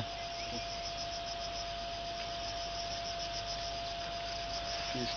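Steady background hiss with a thin steady tone and a faint, fast, high-pitched pulsing, like insects chirping.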